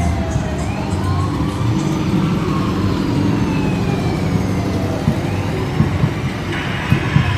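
Sirens wailing in slow rising and falling sweeps, several overlapping, over a steady low rumble. A few sharp thumps come near the end.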